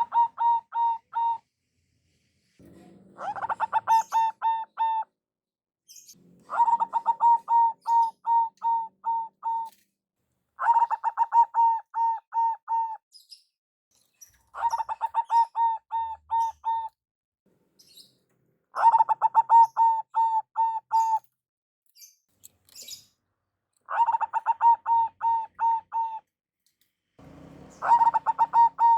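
Zebra dove (perkutut) singing, repeated song bouts about every four seconds. Each bout is a quick stuttering run of notes that slows into several spaced coos.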